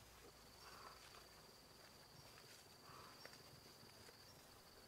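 Faint forest ambience, near silence: a steady high-pitched insect drone, with a soft lower sound recurring about every two seconds.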